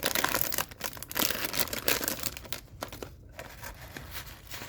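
Plastic blind-bag packaging crinkling and tearing as it is opened by hand, in an uneven run of crackles with a short lull about halfway through.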